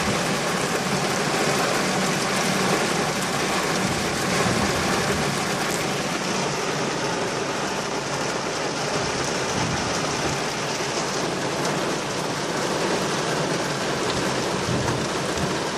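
Heavy rain falling steadily, an even, dense hiss with no breaks.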